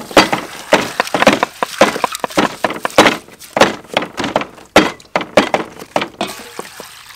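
A knife chopping carrots on a wooden chopping block: a run of sharp, irregular chops, about two to three a second.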